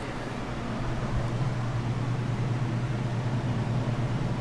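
Walk-in freezer refrigeration unit running with a steady low hum over an even whoosh of fan noise. Its evaporator coil is completely iced up.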